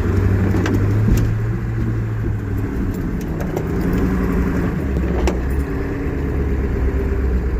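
Ford plow truck's engine running under load as it pushes snow with the plow, its note dropping lower about a third of the way through, with a few scattered knocks.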